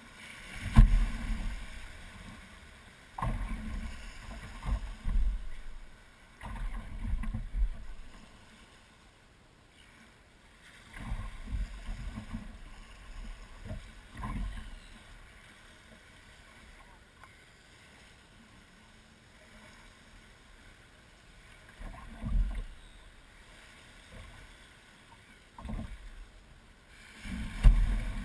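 Small waves lapping and slapping against the hull of a beached Zego sports boat in shallow water: irregular low thuds and splashes every few seconds, the loudest about a second in and near the end.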